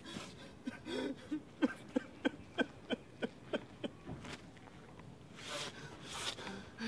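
A quick run of footsteps on a dirt path, about three steps a second for a couple of seconds, followed by a short breathy rustle.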